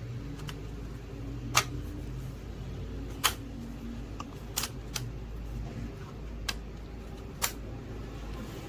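Single keys pressed one at a time on a Logitech K380 Bluetooth keyboard: six sharp, separate clicks a second or so apart, over a steady low hum.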